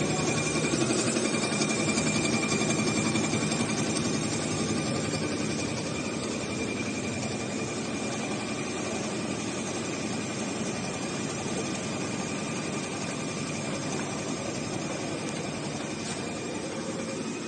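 Roll-to-roll heating-wire sewing machine running steadily, its needle stitching fast and evenly under a thin high whine, a little louder in the first few seconds.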